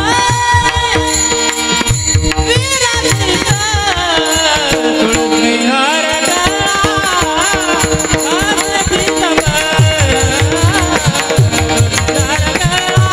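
Marathi devotional kirtan music: a solo voice sings an ornamented panchapadi melody with long gliding, winding phrases over a steady held drone, with tabla-like hand-drum strokes and percussion. The drum strokes drop out for a few seconds mid-way, leaving the voice and drone, then come back in.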